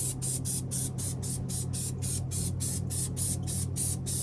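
Aerosol can of spray adhesive hissing in quick short bursts, about four a second, as glue is sprayed onto the ceiling headliner. A steady low hum runs underneath.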